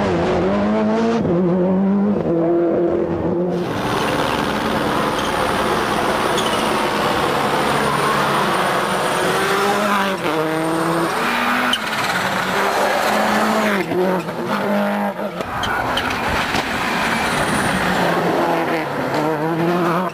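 Subaru Impreza WRC rally car's turbocharged flat-four engine at full racing revs, its pitch climbing and dropping again and again through gear changes as the car drives a tarmac stage. Its sound swells sharply a few seconds in.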